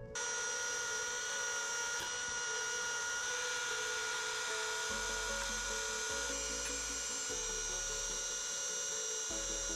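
Dremel rotary tool with a felt polishing wheel running steadily at high speed, with a constant high whine, buffing a metal cabinet hinge. It starts abruptly at the very beginning.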